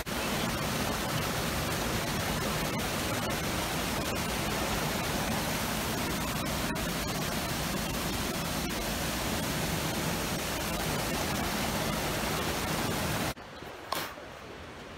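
Rushing water: a steady, even hiss that cuts off suddenly about 13 seconds in, leaving a much quieter background with one brief click.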